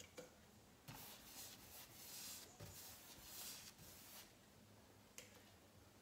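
Faint swishing of a paintbrush stroking paint onto a painted kitchen-island panel: several soft strokes about a second apart, with a light click about five seconds in.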